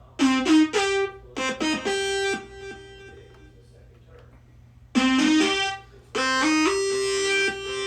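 Synthesizer lead patch on a Korg RK-100S keytar: a short phrase of quick notes ending on a held note, played twice, about five seconds apart.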